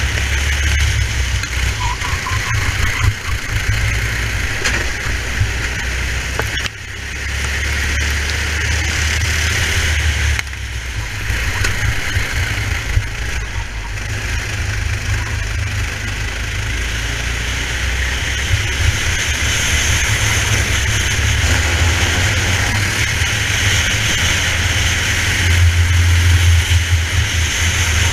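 Racing kart engine running at speed, heard onboard, its level dropping suddenly twice, about 7 and 10 seconds in, and building back up each time.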